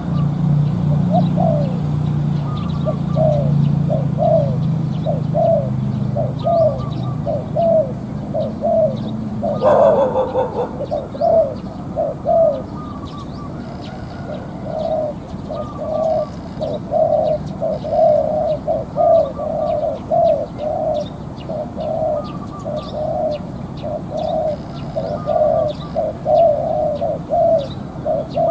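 Spotted dove cooing over and over, a long run of short, low repeated notes. A low hum sits under the first third, and a brief loud noise breaks in about ten seconds in.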